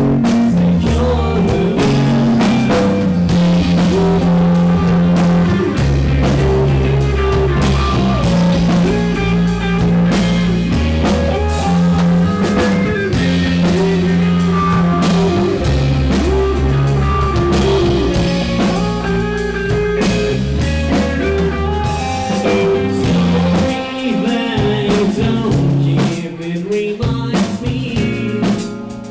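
A live rock trio of electric guitar, electric bass and drum kit playing a song, with a steady bass line under the drums; the band drops back to a sparser passage near the end.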